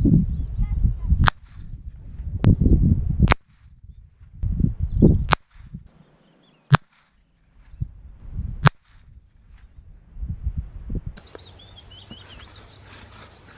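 A Savage .22 bolt-action rifle firing .22 LR rounds: about seven sharp, short shots at irregular intervals of one to two seconds, with low rumbling noise between them.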